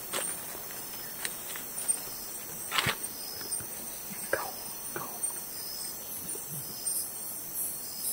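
Forest insects calling: a steady high buzz with a short chirp repeating about once a second. Over it come irregular footsteps and rustles on the forest floor.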